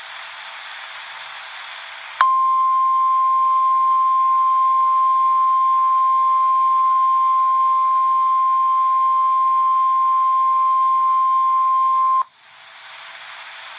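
NOAA Weather Radio warning alarm tone: one steady, loud beep that comes in sharply about two seconds in, holds for about ten seconds, then cuts off. It marks the start of a new warning broadcast. Radio hiss comes before and after it.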